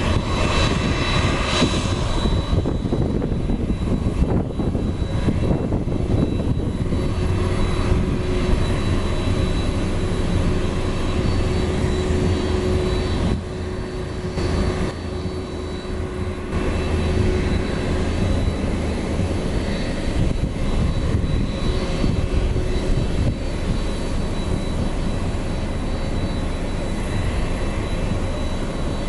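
Jet engines of a Boeing 767-300 freighter running at idle during pushback: a steady low rumble with a thin high turbine whine. It eases a little about halfway through.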